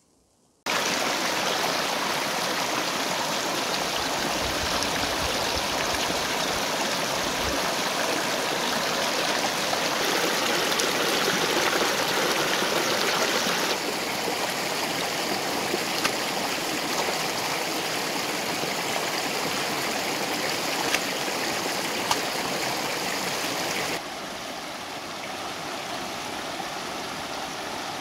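Shallow rocky river rushing steadily over stones, cutting in abruptly near the start, with water splashing around hands as a plucked duck carcass is rinsed in the current.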